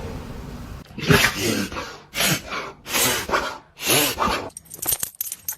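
Yorkshire terrier sneezing four times in quick succession, each a short breathy burst about a second apart. A light metallic jingling starts near the end.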